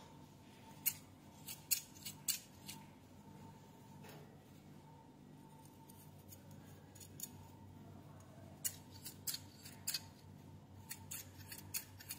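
Pair of Japanese scissors snipping: the blades close with sharp, short clicks in quick clusters, a run of about six in the first few seconds and another run later on.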